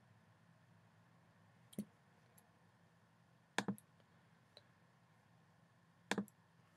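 Computer mouse clicks in near silence: a single click a little under two seconds in, then two quick double clicks, about halfway through and near the end.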